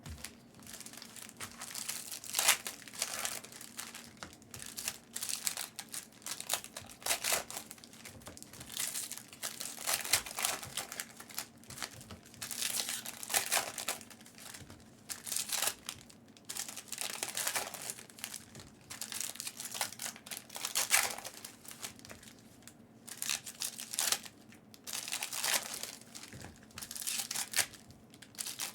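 Trading-card pack wrappers crinkling and tearing as packs are opened, in irregular bursts every second or so.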